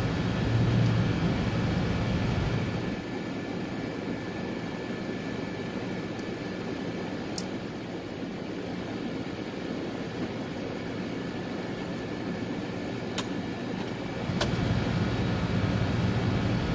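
Steady hum and whir of rooftop HVAC machinery, dipping about three seconds in and coming back up near the end, with a few sharp clicks.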